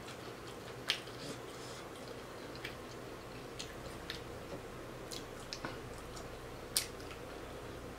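Soft, scattered crunches and clicks of crispy fried fish being pulled apart by hand and picked off the bone, with chewing.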